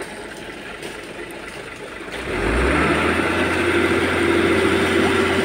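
Concrete mixer truck's diesel engine picking up speed about two seconds in and then running steadily at higher revs, the usual way of turning the drum faster to discharge concrete down the chute. Before that, a low rushing of wet concrete sliding down the chute.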